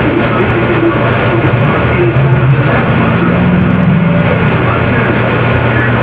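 Loud, steady droning wash of sound with a constant low hum underneath and a faint pitched tone swelling up through it about halfway through.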